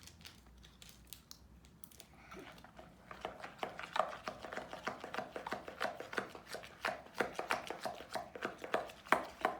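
Slime being stirred to mix in the paint: a quick run of short clicking strokes, about five a second, starting about two seconds in.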